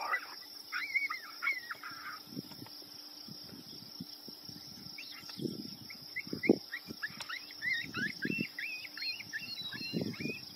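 Pasture ambience: a steady high insect buzz, with a small bird singing quick, repeated chirping notes that come thick from about halfway through. Scattered low, muffled thumps sit underneath.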